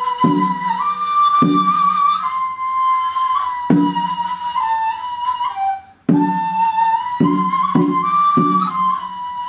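Turkish classical ensemble playing a peşrev in makam hicaz: a sustained melody line over regular strokes of kudüm and frame drum, with kanun and oud. The music breaks off briefly about six seconds in and starts again.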